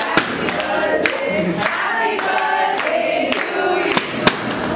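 A group of people singing together, with a few sharp claps or pops cutting through. The loudest comes just after the start and another near the end.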